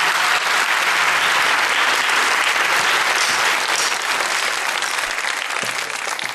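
Studio audience applauding, a dense steady clapping that dies down over the last couple of seconds.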